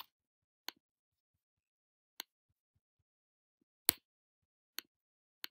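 About six sharp, isolated computer mouse clicks, a second or so apart, the loudest about four seconds in, with dead silence between them.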